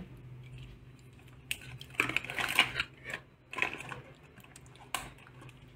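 Handling noise from a thin paperboard box and small plastic honey pouches: scattered short clicks, taps and rustles as they are handled and the box is closed.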